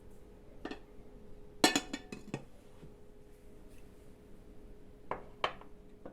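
Kitchen utensils clinking against dishes: one light clink, then a quick run of sharp clinks about two seconds in, and two more clinks near the end.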